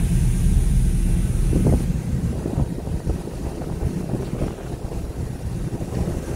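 Small car ferry's engines running with a deep, steady rumble as the ferry comes in to dock, heard from a vehicle parked on its deck. The rumble eases off about two seconds in, leaving a rougher, uneven low rumble.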